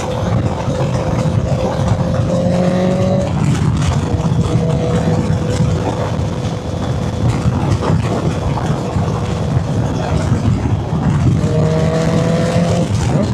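2014 Honda CB650F's inline-four engine, breathing through an exhaust built from a CBR650R system with a custom muffler, running steadily. Its pitch climbs slowly and eases off about three seconds in, then climbs again near the end.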